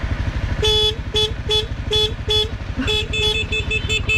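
A horn beeping in short toots: five evenly spaced beeps, then a quicker run of beeps from about three seconds in. Underneath, a Honda CRF250L's single-cylinder engine is running.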